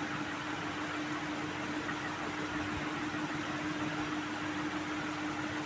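Steady room hum: an even hiss with one held low tone underneath.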